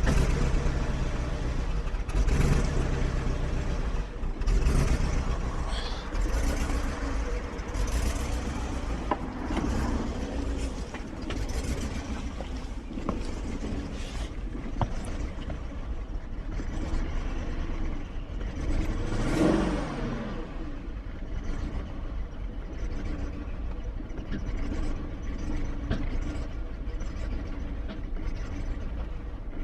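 2001 BMW 740iL's 4.4-litre V8 running rough after a cold start, misfiring, with its revs rising and falling unevenly; the owner puts the misfire down to moisture in the fuel after the car stood for days at −10 to −25°C.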